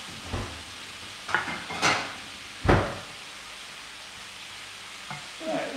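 Diced chicken, broccoli and mushrooms sizzling steadily in a frying pan as a wooden spoon stirs them, with a few knocks and clatters, the loudest a single thump a little under three seconds in.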